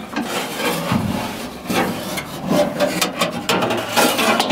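Metal door hardware scraping, rubbing and knocking against the inside of a pickup's sheet-steel door as the lock and latch parts are worked loose in the door cavity. There are several sharp knocks between stretches of scraping.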